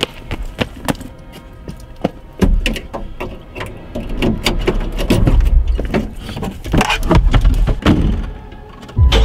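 Running footsteps slapping on pavement, about three a second, then heavy thumps and clatter of people scrambling into a car, with car doors banging shut.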